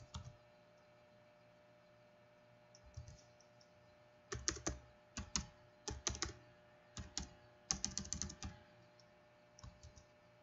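Typing on a computer keyboard: keys clicking in quick irregular bursts, thickest between about four and nine seconds in, with a few scattered keystrokes before and after.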